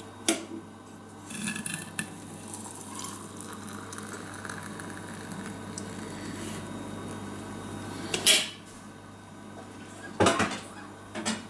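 Hot water poured from a stovetop kettle into a tea glass in a metal holder, a steady stream over several seconds. Clinks of metal and glass around it, the loudest about eight seconds in, with two more near the end.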